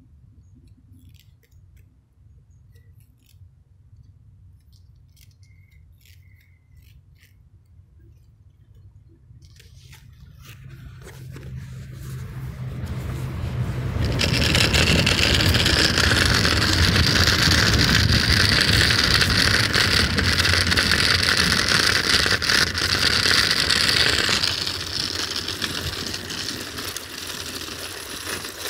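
Train passing on an electrified railway line: it builds over a few seconds, runs loud and steady with a rail hiss for about ten seconds, then falls away suddenly as it goes by.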